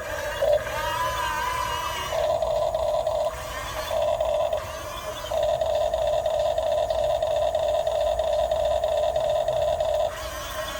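Huina 1550 RC excavator's electric motors whining in spurts as its controls are worked: three runs, the last and longest about five seconds, stopping a little before the end.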